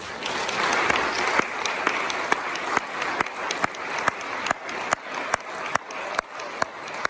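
Audience applauding, breaking out suddenly, with one nearby clapper standing out in a steady beat of about two loud claps a second.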